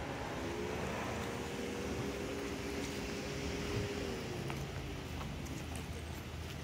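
Traffic noise with a passing motor vehicle's engine hum. The hum rises in pitch about a second in, holds, then falls away after about five seconds as the vehicle goes by, with a few faint ticks over the top.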